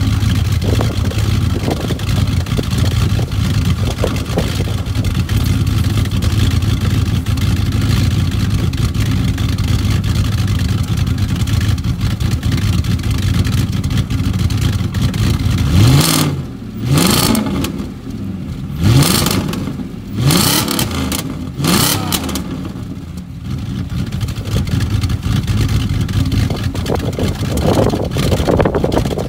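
Straight-piped Audi S4's V8 exhaust idling steadily, then, about halfway, revved sharply about five times in quick succession before settling back to idle.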